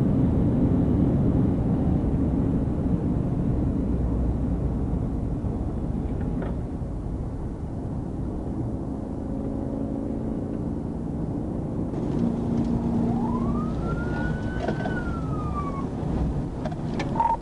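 Patrol car cabin noise at very high speed: a dense, loud low rumble of engine, tyres and wind that eases a little as the car slows. About thirteen seconds in, a siren wails once, rising and then falling away.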